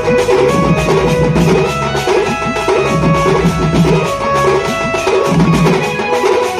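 A street drum band playing a fast, busy rhythm on hand-slung drums and large brass hand cymbals, under a melody of held notes and a steady bass line.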